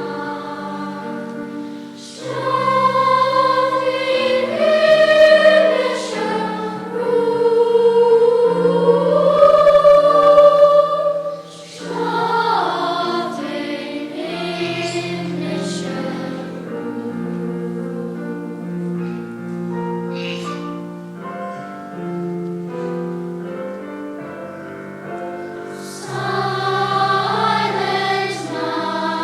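Youth choir singing in held, slow-moving phrases. It is loud at first, drops to a softer passage about a third of the way in, and swells again near the end.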